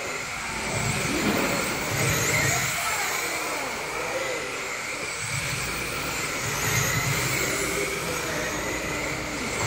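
Electric radio-controlled race cars running laps on an indoor carpet track: thin motor whines rise and fall as the cars come and go, with low rumbles as cars pass nearer, over the steady noise of a large hall.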